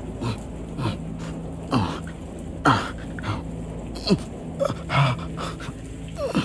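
A man groaning and gasping in pain: a string of short strained groans, each falling in pitch, the sounds of an injured man dragging himself along. A low steady hum sits under them.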